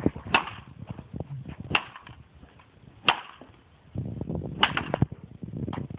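Tennis racket smacking a computer motherboard: about five sharp whip-like strikes a second or so apart, with rattling of loose parts between them.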